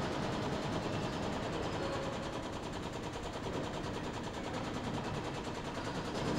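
Steady, rapid mechanical rattling from the hydraulic jack rig pushing a centrifugal compressor's diaphragm bundle along its guide track into the casing.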